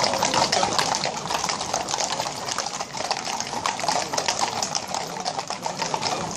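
Many horses' hooves clip-clopping on an asphalt road as a mounted column walks past, the strikes overlapping irregularly over a steady rushing noise.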